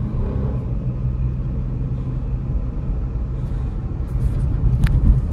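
Cabin noise of a Renault Kwid 1.0 three-cylinder car being driven: a steady low engine and road rumble, with a sharp click a little before the end.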